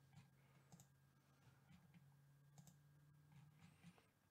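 Near silence with faint computer mouse clicks, about five of them roughly a second apart, over a faint low hum.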